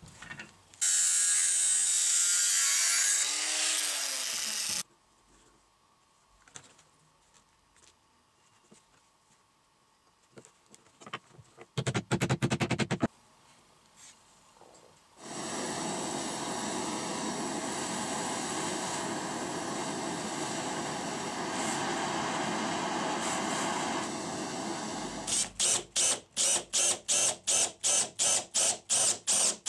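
A power tool runs for about four seconds and then winds down, falling in pitch. Quiet handling follows, then a brief burst of fast strokes and a steady power-tool run of about nine seconds. Near the end a cordless drill with a spade bit bores into a small wooden block in short, rapid pulses, about three a second.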